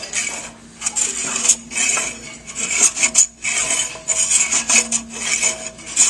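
WaveInjector hand cutting tool scraping across a pipe's surface in repeated rasping strokes, about one a second, shaving the spot flat for mounting the transducer blades.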